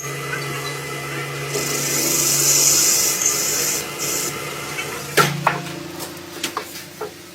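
Lathe cutting a thread: a steady motor hum under the scraping of the cutting tool on the workpiece, with a hiss for about three seconds in the middle, then a few sharp knocks in the last two seconds as it quietens.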